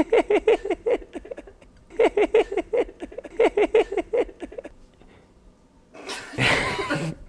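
A man's voice making non-speech sounds: three quick runs of short, repeated pitched syllables, about six a second, then a loud breathy, hissing burst near the end.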